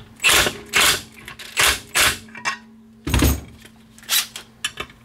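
Cordless impact driver hammering in about six or seven short bursts, tightening the clutch tool down on a Polaris RZR Turbo secondary clutch.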